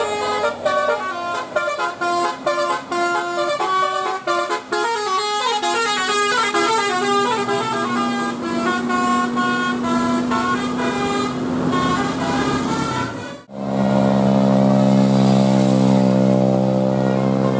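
Bus 'telolet' musical horn, a set of multi-trumpet horns, playing a quick stepping tune of short notes. After a sudden break about 13 seconds in, the horns hold one loud steady chord.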